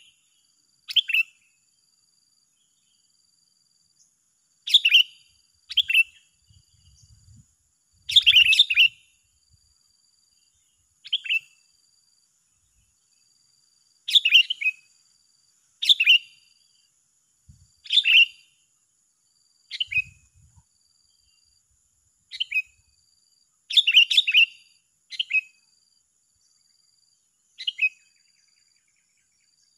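Sooty-headed bulbuls (kutilang) trading short, bright chirping calls, a burst every one to three seconds at uneven gaps, in a calling duel between two birds.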